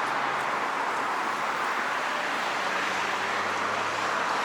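Steady city traffic noise: an even wash of road sound with a low engine hum that shifts in pitch about three seconds in.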